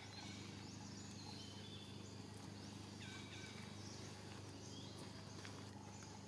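Quiet outdoor ambience: a steady low hum under faint, short high calls that sweep down in pitch, repeating every second or so, with a few soft clicks.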